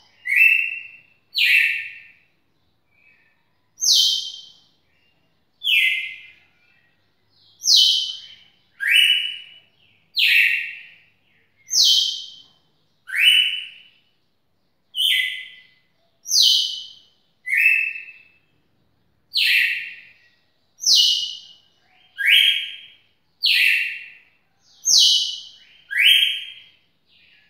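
Red-cowled cardinal singing a long unbroken series of short, clear notes, about one a second, alternating between a higher and a lower note.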